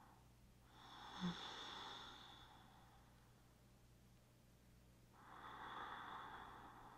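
A person's slow, deep breaths, faint, two of them: one about a second in and one about five seconds in. A brief soft thump comes during the first breath.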